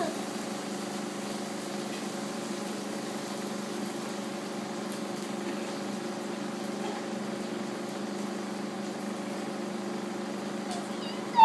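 A steady machine hum made of several even tones, unchanging in pitch and level, typical of a household appliance or motor running in a small room.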